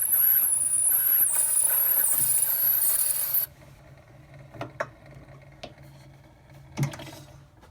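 A steel cutting stylus on an Edison Diamond Disc phonograph cutting a groove into a spinning acetate blank: a loud scraping hiss with a high wavering squeal that cuts off suddenly about three and a half seconds in. A few light clicks and knocks follow.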